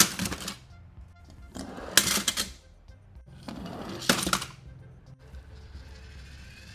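Toy cars clattering as they slide out of a cardboard box and down a corrugated plastic ramp, three times about two seconds apart, each clatter lasting about half a second.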